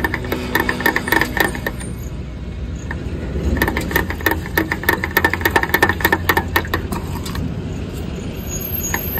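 Petrol station fuel dispenser running during a fill-up: rapid mechanical clicking and metallic rattle with a high steady tone that comes and goes, over a low rumble.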